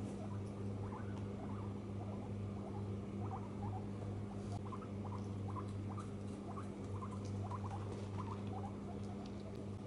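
A guinea pig making many short, soft squeaks, a few each second, over a steady low hum.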